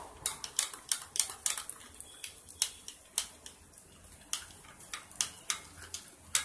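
Wire balloon whisk beating curd in a glass bowl, its wires clicking against the glass in an uneven rhythm of about three clicks a second.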